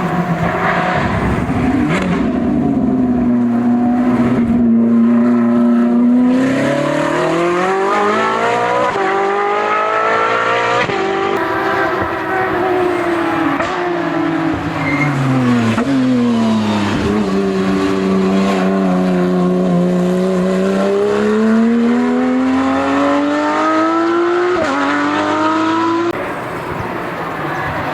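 Hill-climb race car engine under hard load, its revs climbing for several seconds, dropping sharply at a gear change, then sinking and rising slowly again as the car works through bends; the engine note falls away suddenly near the end.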